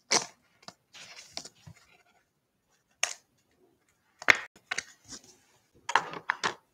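A trading card being handled and put into a clear plastic holder. Short, sharp rustles and clicks of card and plastic come in several separate bursts, near the start, about three seconds in, and again over the last two and a half seconds.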